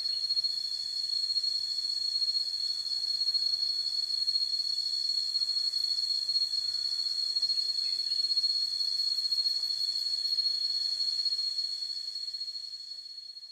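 Forest insects trilling in a continuous high-pitched drone, one steady shrill tone with a fast flutter, fading out near the end.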